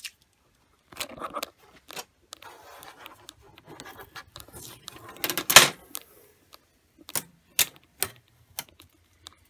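Hands picking at and peeling orange packing tape off a laser printer's plastic casing: scattered fingernail scratches, clicks and short tape rasps, the loudest burst about five and a half seconds in, then a few sharp clicks.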